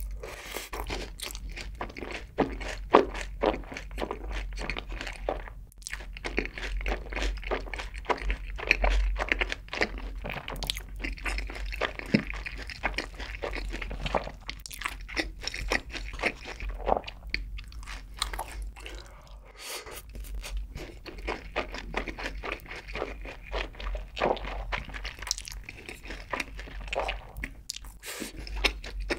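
Close-miked chewing of sweet sauce-coated fried chicken (yangnyeom chicken) with rice: many small, irregular crunches of the fried coating, mixed with wet mouth sounds.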